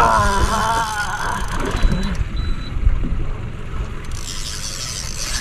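Low rumble of wind and sea on an open boat, with a man's drawn-out, wavering groan in the first second and a half and a brief thin high tone about two seconds in.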